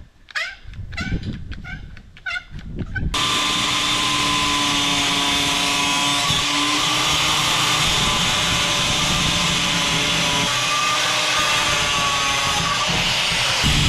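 A few short knocks and clatters of metal being handled. About three seconds in, a power tool starts abruptly and runs steadily with a wavering whine, cutting a sheet of expanded steel for a shelf.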